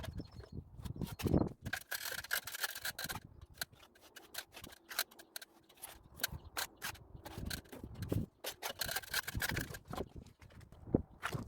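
Hand work on a wall surface: irregular clicks and knocks, with two longer stretches of scraping, about two seconds in and again near the end.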